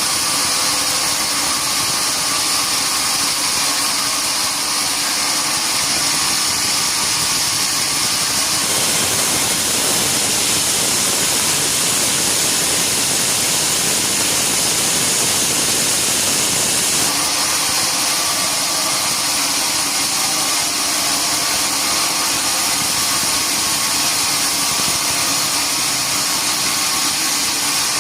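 Sawmill machinery running steadily, a continuous loud mechanical noise; from about 9 to 17 seconds in its sound changes, fuller in the middle range, then returns.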